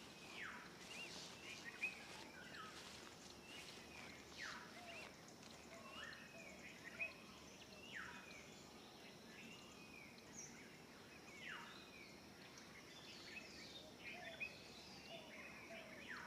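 Faint outdoor ambience of birds calling: repeated falling whistled calls every second or two, mixed with short chirps, over a light hiss.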